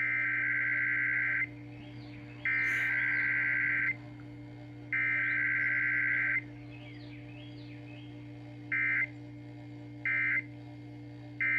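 Emergency Alert System SAME data tones from a KDKA broadcast test. The raspy digital header burst is sent three times, each burst about a second and a half long, and then the short end-of-message burst is sent three times. A steady low hum runs underneath.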